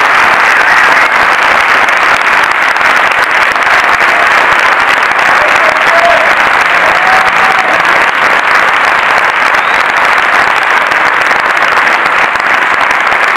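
A large cinema audience applauding, steady and sustained.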